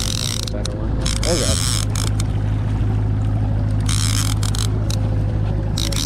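Convector CV20D line-counter trolling reel being cranked to bring in a hooked coho salmon, its gears clicking as the handle turns, over the steady low drone of the boat's motor.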